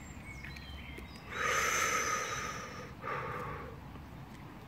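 A person breathing out twice through the mouth: a long exhale, then a shorter one.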